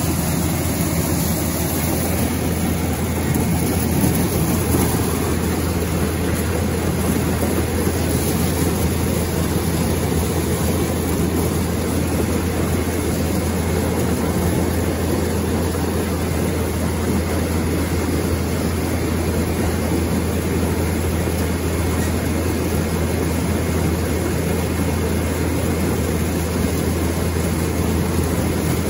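A John Deere ear corn elevator running steadily, its flights carrying ears of corn up into a crib with a continuous machinery drone and clatter.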